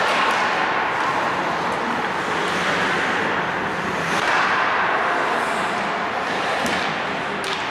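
Ice hockey rink noise during play: a steady rushing noise with a few sharp clicks, about four seconds in and again near the end.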